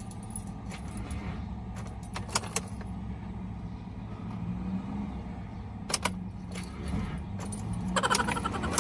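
Car starter motor cranking weakly and slowly without the engine catching, powered by a 3S lithium-polymer RC battery through diode jumper cables that cannot feed it enough current. A few sharp clicks come along the way.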